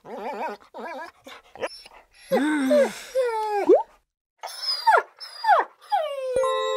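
Dogs whining and yelping in a string of short calls, several with a sharp downward slide in pitch and one longer wavering whine in the middle. Near the end a steady chime-like tone starts and holds.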